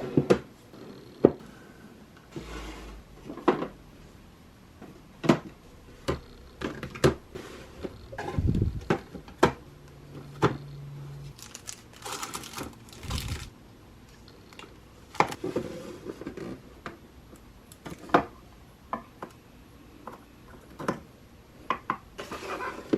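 Objects being handled and set down in a small room: scattered light knocks and clicks at irregular intervals, with a few short rustles.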